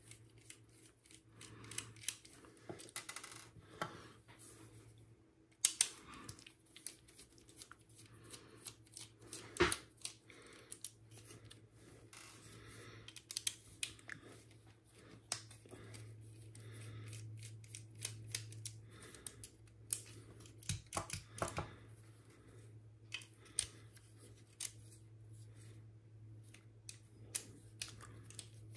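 Small scattered clicks and scrapes of a precision screwdriver turning screws out of a Bambu Lab X1C extruder's plastic housing, with a faint steady low hum underneath.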